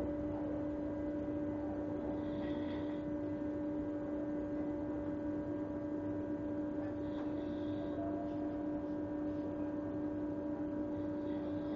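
A man snoring, a breath about every four and a half seconds, over the steady electric hum of a commuter train carriage.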